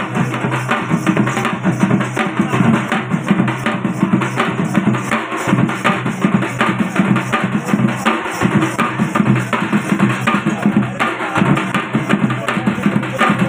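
Several drums beaten in a fast, steady, unbroken rhythm: the drum accompaniment to an Odia Danda Nacha folk dance.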